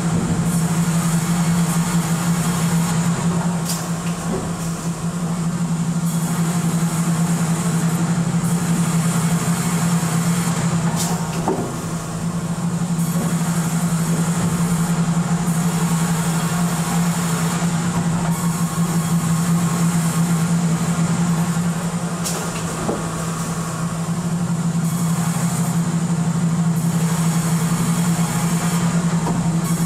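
Sawmill processing-line machinery running steadily: a constant low hum under a broad mechanical rush, with a few brief knocks as timber passes through.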